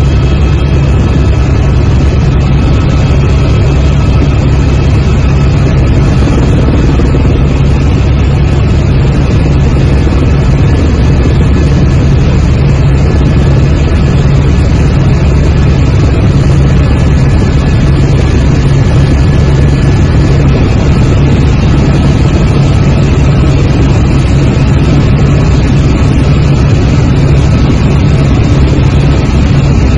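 Helicopter engine and rotor noise heard from inside the cabin in flight: a loud, steady drone with a deep hum.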